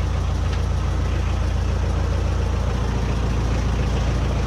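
Boat's diesel engine idling, a steady low rumble.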